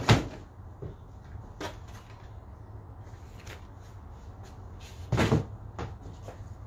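Stencil sheets and cardboard boxes being handled on a wooden table: a sharp knock right at the start and a double knock about five seconds in, with a few lighter taps and clicks between.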